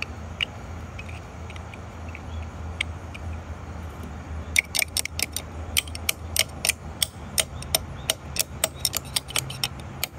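Small metal pump parts clicking and clinking as they are handled and fitted, over a steady low hum. The quick, irregular run of sharp clicks starts about halfway in.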